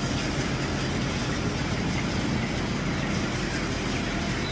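Steady low mechanical rumble with an even hiss over it: the running ambience inside a broiler chicken shed full of young chickens.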